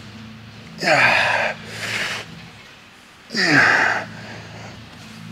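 A man's strained grunting exhalations on the effort of single-arm cable lat pulls, two in this stretch about two and a half seconds apart, each falling in pitch.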